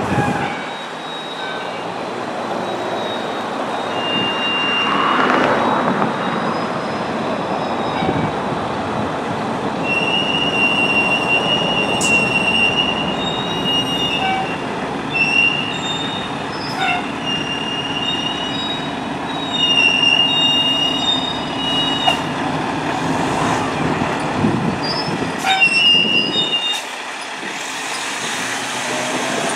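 Fire engine pulling out of its station bay, its diesel engine running with the brakes squealing in repeated high-pitched tones as it creeps forward. Near the end a siren starts to rise.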